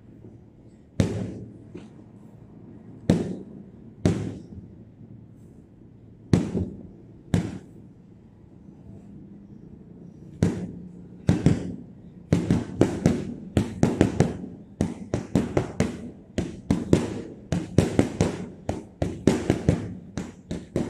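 Boxing gloves punching a hanging heavy bag: single blows a second or two apart, then, a little past halfway, a fast flurry of several punches a second. Each thud rings on briefly.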